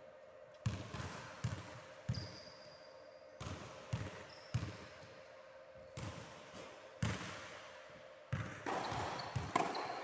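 Tennis ball rally on a hardwood sports-hall floor: about a dozen sharp knocks at uneven intervals from racket strikes and ball bounces, each ringing on in the big hall's echo. A steady low hum runs underneath, with a few short high squeaks.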